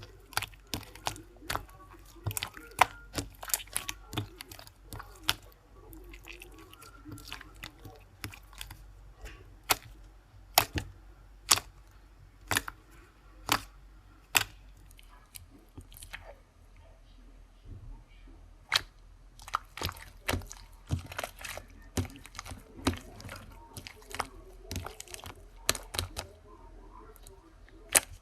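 Irregular sharp clicks and crunches, about one or two a second, with quieter crackling between them.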